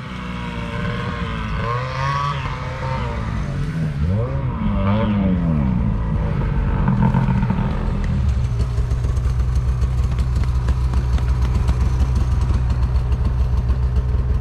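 Snowmobile engine revving up and down as a sled rides up and slows, then settling about eight seconds in to a steady low idle with a fast pulsing beat.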